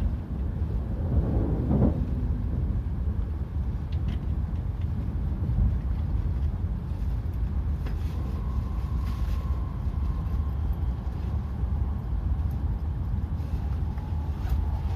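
Tohoku Shinkansen train running at speed, a steady low rumble heard inside the passenger car, with a faint high whine that comes and goes in the second half.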